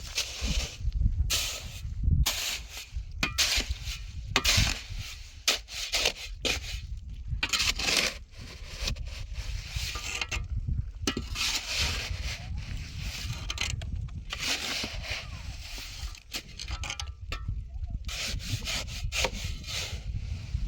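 Repeated rubbing or scraping strokes at an uneven pace, each lasting a fraction of a second, over a steady low rumble.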